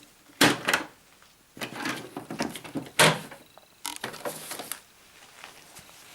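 A cordless drill's packaging being opened and its contents handled: a sharp knock about half a second in, a second or so of scraping and rustling, a louder knock about three seconds in, then more rustling that dies down before the end.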